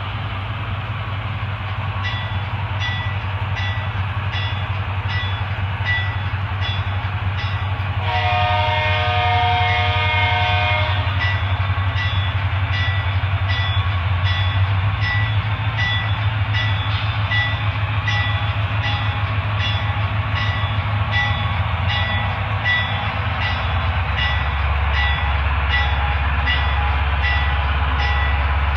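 Digital sound of an HO scale sound-equipped diesel locomotive, with its deep engine rumble played through a Broadway Limited Rolling Thunder subwoofer, and steady clicking about one and a half times a second. A multi-chime horn sounds for about three seconds about eight seconds in, and near the end the rumble drops lower.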